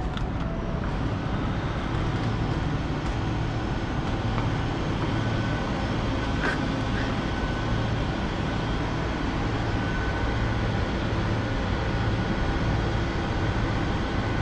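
Steady low hum of a room full of refrigerated vending machines running, with a faint high whine. A soft low pulse comes about once a second from midway, and there are a few light clicks near the start and one about halfway.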